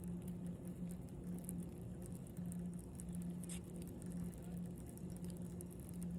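Electric buzz from a power pole: a steady hum, wavering slightly in strength, with faint crackling ticks over it, which sounds to the fishermen like the pole is arcing.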